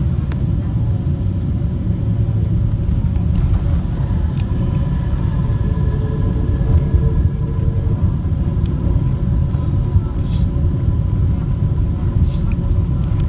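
Airliner cabin noise while taxiing after landing: a steady low rumble of the jet engines and wheels, with a faint steady whine in the middle.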